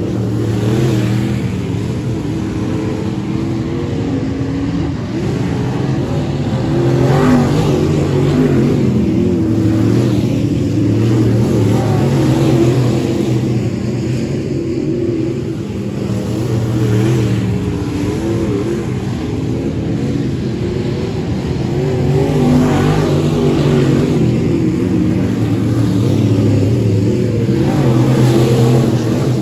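Several dirt-track sport mod race cars' V8 engines running hard around the oval, the pitch rising and falling as they accelerate and lift. The sound swells several times, about every five seconds, as packs of cars go past close by.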